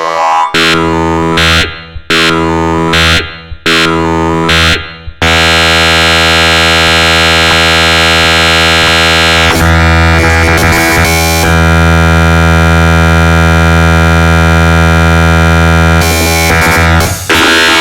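Dense synthesized MIDI music from a 'dark MIDI' arrangement of the HTC ringtone, with very many notes sounding at once. For the first five seconds, sweeps dip down and come back up about once a second, then a thick sustained chord holds.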